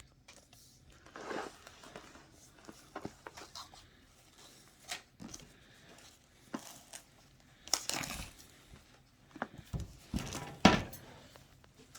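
Packaging being handled by hand: irregular crinkling, rustling and tearing with sharp clicks and knocks, the loudest knocks near the end.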